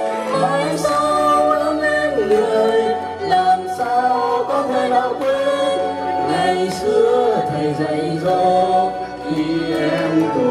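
A man and a woman singing a Vietnamese song as a karaoke duet into handheld microphones over a backing track.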